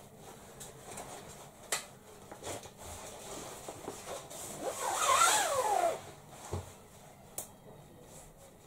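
Stiff roller-blind fabric rustling and rubbing as it is handled and rolled onto its tube, with a couple of sharp clicks. About five seconds in comes a louder squeaky rub lasting about a second.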